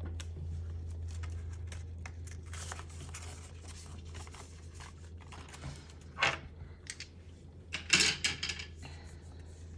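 Polymer banknotes and a clear plastic binder pocket rustling and crinkling as cash is handled and slipped back into the pocket, with a few louder crackles about six and eight seconds in. A steady low hum runs underneath.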